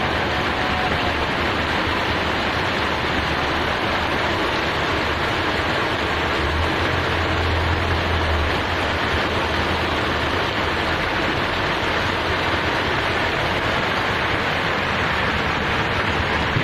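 Heavy rain pouring down on a street, a dense, steady hiss. A low rumble swells briefly around the middle.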